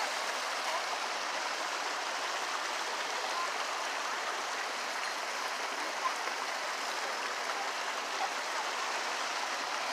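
Steady rush of water running over rocks in a shallow stream.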